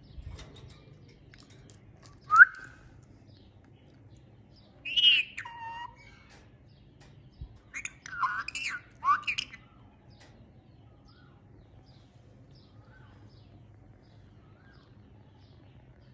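Rose-ringed parakeet calling in short, sharp bursts: a single call about two seconds in, a longer call around five seconds, then a quick run of three or four calls around eight to nine seconds. Faint soft chirps follow in the second half.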